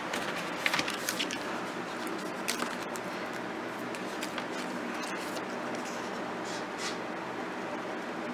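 An envelope and scissors handled on a craft table: a few soft clicks and paper rustles over a steady faint hiss.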